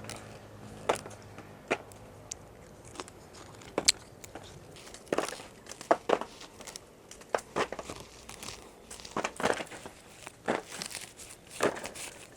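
Irregular dry crackling and crinkling: a run of sharp snaps and short rustles at uneven intervals.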